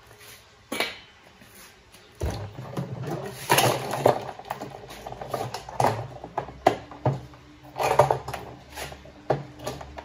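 Irregular knocks and clatter of hard washing-machine parts being handled and set down, over a low steady hum that comes in about two seconds in.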